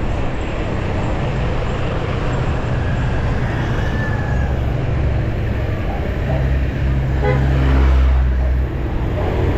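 Road traffic in slow-moving flow: motor vehicle engines rumbling close by, one growing louder and peaking about eight seconds in.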